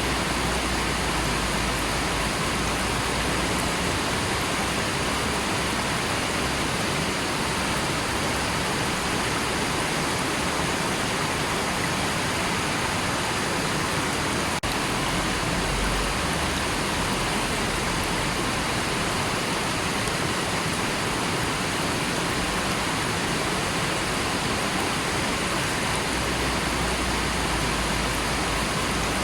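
River water flowing in a steady, even rush that does not change.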